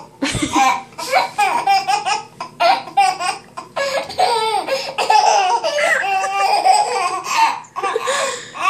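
Baby laughing and giggling in repeated high-pitched bursts, with short breaks between fits.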